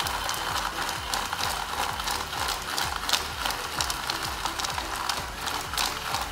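A battery-powered portable mini blender running steadily, its motor humming while pieces of ice rattle and click against the plastic jar as it crushes them.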